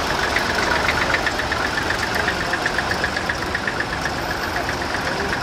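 Vintage Fordson tractor engines running at low speed as the tractors drive slowly past, with a rapid, regular ticking knock.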